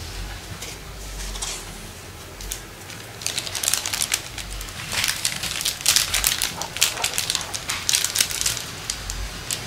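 Clear plastic bag and tissue-paper wrapping crinkling and rustling as they are handled and pulled open, in quick irregular crackles that grow busier from about three seconds in.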